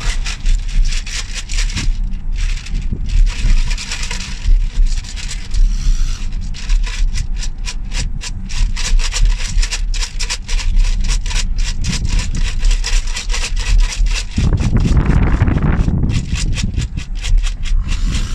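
Steady low road rumble inside a moving car's cabin, overlaid with rapid scratchy rubbing and scraping close to the phone's microphone. A louder rush swells up for about a second and a half near the end.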